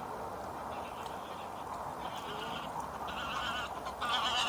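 Geese honking in a series of short calls, about four of them, growing louder toward the end, over a steady hiss of wind.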